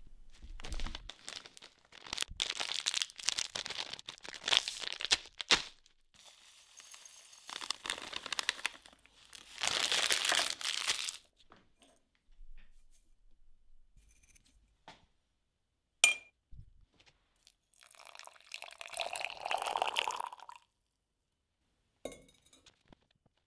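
Plastic bag of yerba mate crinkling as it is handled and opened, then dry yerba leaves poured with a dense rustling hiss into a glazed ceramic mate cup. Past the middle comes a sharp clink against the cup as the bombilla straw goes in, then more rustling and a few small clicks.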